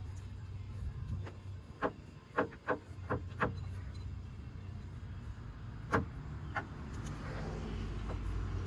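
Irregular sharp metal knocks and clicks, a few scattered and a quick cluster of four or five, from hand tools and suspension parts being worked on a pickup's front end, over a steady low hum. Near the end a rising rush of noise from a passing vehicle builds up.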